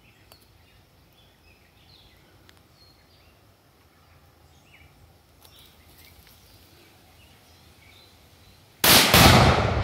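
Faint outdoor background with small chirps, then, nearly nine seconds in, a sudden very loud blast: a 2 lb Tannerite charge in a barrel detonating, followed by a low rumble that rolls on and slowly fades.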